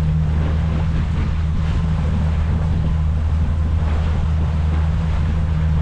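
Sailboat under way: a steady low engine hum under the rush of water along the hull, with wind buffeting the microphone.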